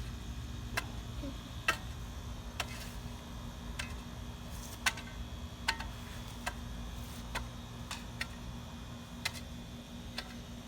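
Soil over a freshly filled hole being patted down, a series of sharp taps about once a second.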